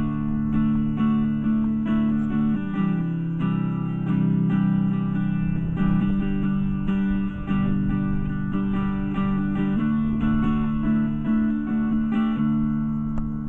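Kelton Swade '53 Brownie, a Telecaster-style electric guitar, playing a strummed chord riff. Chords ring between repeated strums, and the playing tapers off slightly near the end.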